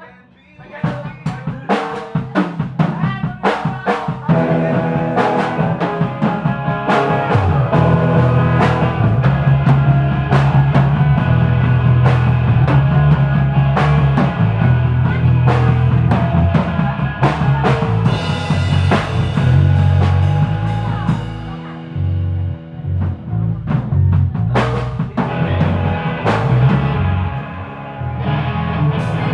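A rock band playing live in a rehearsal room: drum kit, electric guitars and bass guitar together. Sharp drum hits start about a second in, the bass and guitars fill in fully a few seconds later, and the playing briefly thins out about two-thirds of the way through before carrying on.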